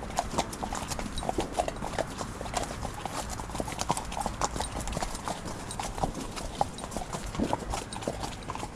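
Several horses' hooves clip-clopping on a tarmac lane at a walk, a steady run of uneven hoof strikes.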